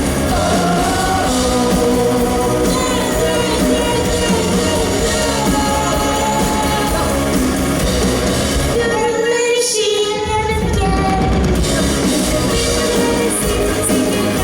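Live rock band playing loudly, with drums and bass underneath. About nine seconds in, the drums and bass drop out for a couple of seconds, leaving only the higher parts, then the full band comes back in.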